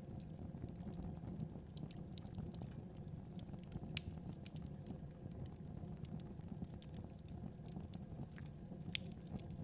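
Wood fire crackling: irregular sharp pops and snaps over a steady low rumble of burning, with louder pops about four seconds in and near the end.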